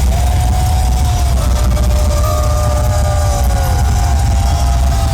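Thrash metal band playing live, heard loud and distorted through a crowd-recording microphone, with a heavy, overloaded bass and drum rumble. Over it, sustained high notes hold and then bend down in pitch, overlapping one another.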